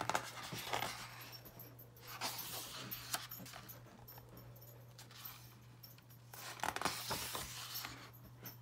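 Pages of a picture book being turned by hand: paper rustling and sliding in three stretches, near the start, about two seconds in and again near the end, over a low steady hum.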